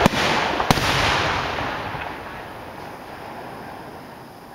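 Aerial fireworks shells bursting: two sharp bangs near the start, about two-thirds of a second apart, followed by a rushing tail of noise that fades away over the next few seconds.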